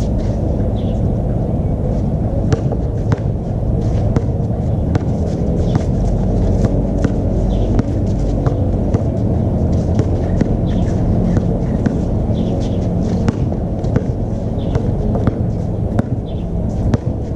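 Basketball bouncing on an outdoor court, sharp thuds repeating every half second to a second over a steady low rumble.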